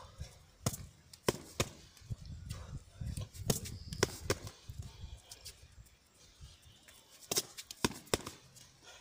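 Boxing gloves landing on focus mitts in a series of sharp smacks, unevenly spaced, with a pause in the middle and a quick pair near the end.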